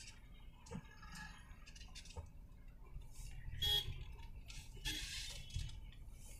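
Low rumble of a slow-moving car and the street traffic around it, heard from inside the car, with scattered short sounds over it. The loudest of these comes a little past halfway.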